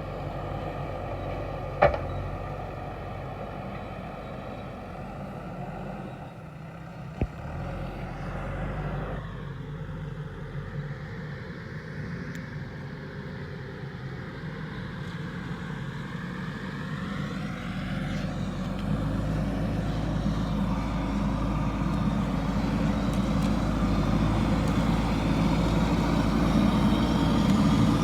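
JCB backhoe loader's diesel engine running and working, getting louder over the last third as it takes more load. Two sharp knocks ring out, one about two seconds in and one about seven seconds in.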